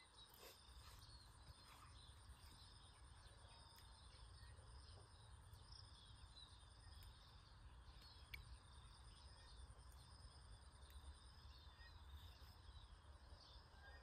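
Near silence: faint rural outdoor ambience, with a steady low rumble and faint high-pitched chirps.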